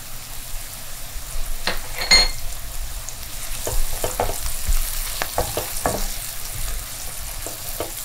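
Onions sautéing in oil in a skillet with turmeric just added, sizzling steadily while a utensil stirs and scrapes them, with scattered knocks against the pan. A short metallic clink rings about two seconds in.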